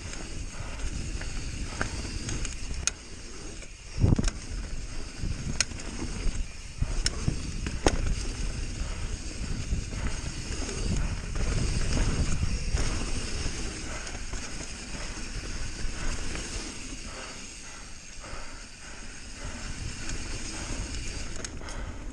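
Bird Aeris mountain bike riding fast down a dirt trail: tyre rumble and chain and frame rattle, with sharp knocks over bumps, the hardest about four seconds in, and wind on the microphone.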